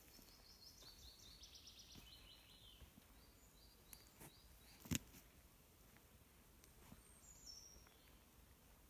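Faint woodland birdsong: a small songbird sings a run of quick high notes that step down in pitch, then a few repeated notes, and a short high call later. A single sharp click about five seconds in is the loudest sound.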